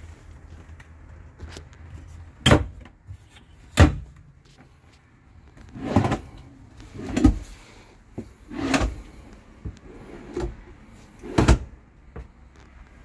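Motorhome cabinet doors and wooden drawers being shut and slid open and closed: two sharp knocks in the first few seconds, several longer sliding sounds in the middle, and another sharp knock near the end.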